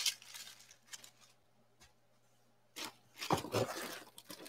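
Packaging being handled on a table while unboxing: a few light knocks and rustles, then a louder run of scraping and rustling about three seconds in.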